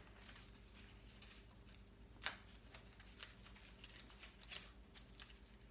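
Faint, scattered rustles and crinkles of tissue-paper wrapping being handled, the sharpest about two seconds in, over a low steady room hum.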